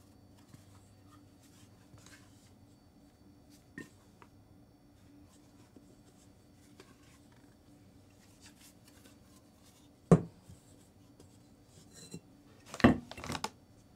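A stainless steel mixing bowl handled on a kitchen counter: mostly quiet handling, then a sharp metal knock about ten seconds in as the bowl is set down, and two or three knocks close together near the end as the bowl and a dough scraper are moved.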